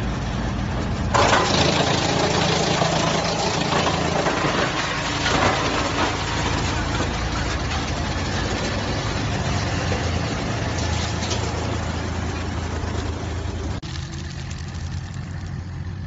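55 kW wood chipper running with a steady hum. About a second in, a log starts being chipped with a loud, noisy chipping sound that is strongest for several seconds and then eases. Near the end the chipping noise drops away suddenly, leaving the machine's hum.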